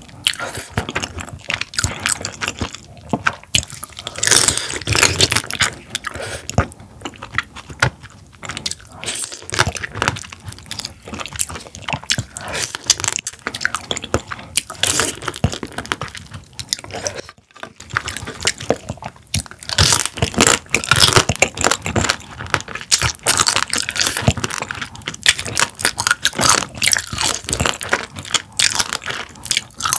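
Close-miked eating of spicy marinated raw crab: a person biting into pieces of crab in shell and chewing, with many irregular crunches and crackles and a short pause a little past halfway.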